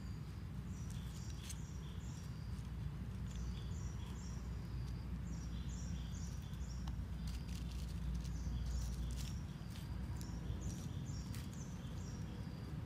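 Dry leaves and small twigs crackling and snapping in scattered clicks as a kitten steps and paws through leaf litter. Short high bird chirps repeat in groups in the background over a steady low rumble.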